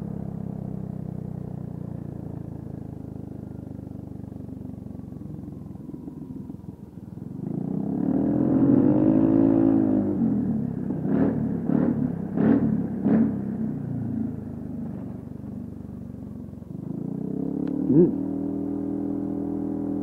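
Honda PCX150 scooter's single-cylinder engine running while riding, easing off at first, then revving up about eight seconds in. Right after that come four evenly spaced thumps a little over half a second apart, and the steady engine drone and one sharp click follow near the end.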